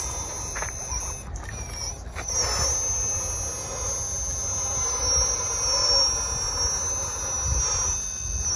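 High whine of a radio-controlled scale 6x6 truck's electric drive and gearbox, held steady with its pitch wavering slightly as the throttle changes, over a low rumble.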